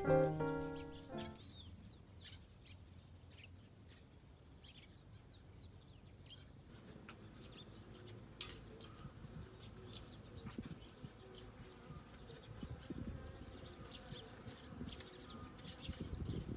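Mallet-percussion background music fading out in the first second, then quiet outdoor ambience with a few small bird chirps and scattered faint clicks.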